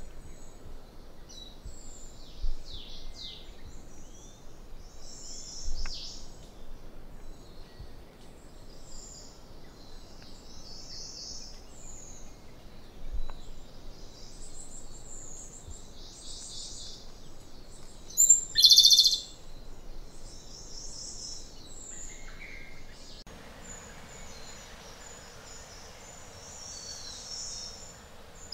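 Japanese robin (Larvivora akahige) singing: short, high trilled phrases, the loudest pair about eighteen seconds in, among fainter high bird calls throughout.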